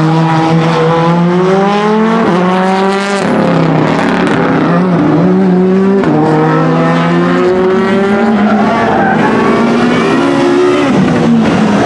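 Renault Clio Super1600 rally car's 1.6-litre four-cylinder engine revving hard, its pitch climbing and falling back several times as it is driven through tight corners.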